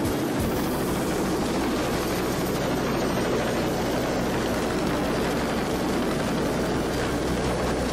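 Helicopter engine and rotor running steadily: a constant low hum under an even rushing noise.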